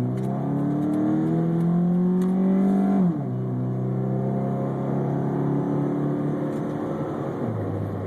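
2008 Chrysler PT Cruiser's four-cylinder engine with an Airaid intake and Magnaflow exhaust under hard acceleration, heard from inside the cabin with the windows closed. Its pitch climbs, drops sharply at an upshift about three seconds in, then climbs again more slowly.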